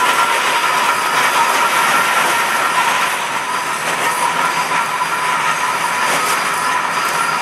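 Climax geared steam locomotive and its cars rolling past and away along the track, wheels clattering on the rails, with a thin steady squeal running through; it eases slightly as the train pulls away.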